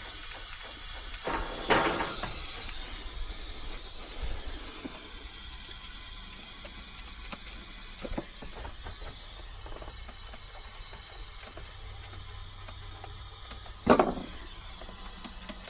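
Pressurizing gas, nitrogen, hissing through the gauge manifold and hoses into a heat pump's refrigerant circuit for a pressure leak test. The hiss is strongest in the first few seconds. There is a sharp knock about two seconds in and a louder one near the end.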